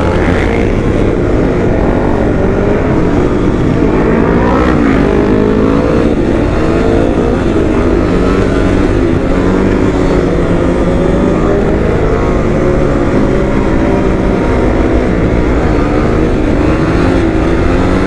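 Motorcycle engine running under way, its revs rising and falling again and again as the rider accelerates and shifts, over heavy wind rumble on the helmet microphone.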